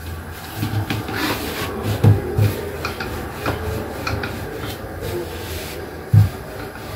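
Chapati dough being rolled out on a floured wooden countertop: repeated rubbing and scraping strokes with soft low knocks, and one louder knock about six seconds in.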